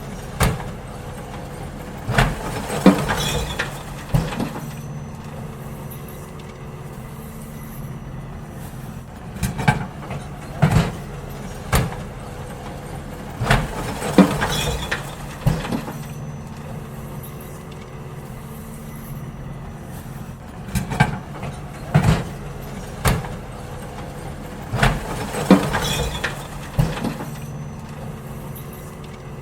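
Garbage truck's engine running steadily while bins are emptied, with repeated groups of loud bangs and clanks every few seconds as the bins are tipped and knocked against the truck.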